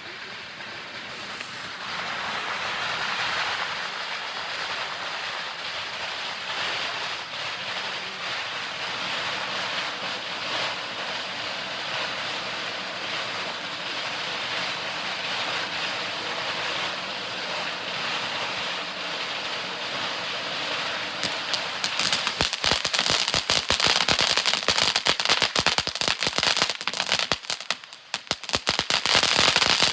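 Small cone firework fountain (Jr Snow Cone) spraying with a steady hiss, then switching to dense rapid crackling about two-thirds of the way through.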